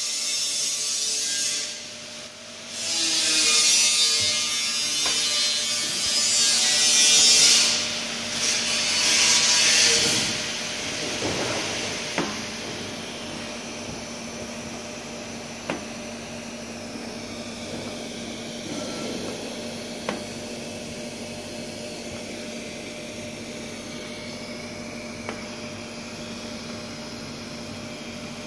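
Laser seam welding machine working on 0.6 mm stainless steel sheet. Several loud bursts of hissing noise come in the first ten seconds, then a steady machine hum with a low held tone and occasional light clicks while the laser runs along the clamped seam.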